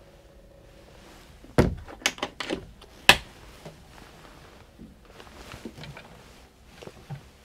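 Glossy wooden galley cupboard doors being opened and shut by hand, with several sharp clicks and knocks from their latches and doors. The loudest knock comes about three seconds in, and fainter ones follow.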